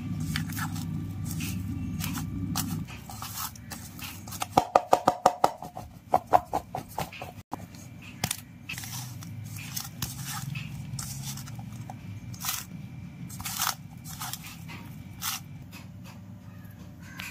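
Boiled baby corn pieces being tossed by hand in a flour coating in a steel bowl: soft scraping and crunching with scattered clicks, and two quick runs of clattering taps between about four and seven seconds in.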